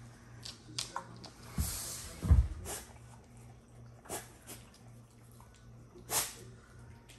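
Dog sniffing and snuffling through hay on a tray, rooting for hidden food: a run of short sniffs, rustles and mouth sounds, with one louder low thump about two seconds in.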